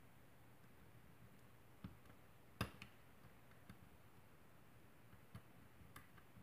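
A hook pick working the pins of a spool-pinned pin-tumbler lock cylinder under tension: a few small, sparse clicks against a quiet background, the sharpest one about two and a half seconds in.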